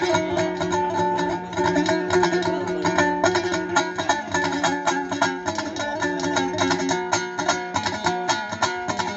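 Dombra, the two-stringed long-necked Uzbek lute of the bakhshi tradition, strummed fast in a steady rhythm with its strings droning underneath, an instrumental passage between sung verses. It is played into a microphone and heard through loudspeakers.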